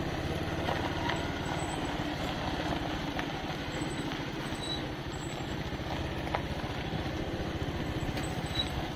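Motorcycle engine running steadily while riding, with a few faint knocks.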